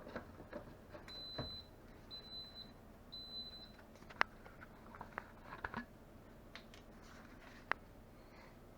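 Instant Pot control panel beeping three times, about a second apart, the signal that the sauté program has started heating. A few light clicks and taps follow.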